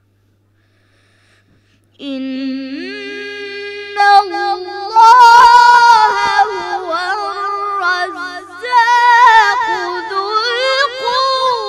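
A boy reciting the Quran in the melodic, chanted style, starting about two seconds in with a long held note that then rises into ornamented, wavering phrases.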